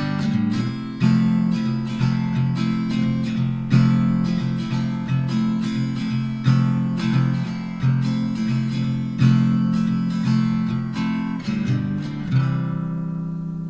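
Acoustic guitar music with strummed chords; near the end a last chord is left to ring and fade.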